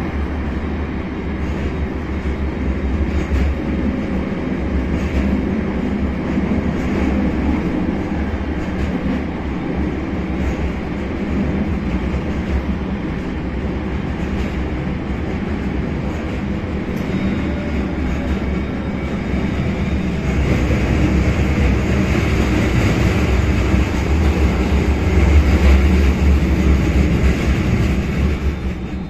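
Tram running, heard from inside the passenger saloon: a steady rumble of wheels on rails and the running gear, growing louder about two-thirds of the way through.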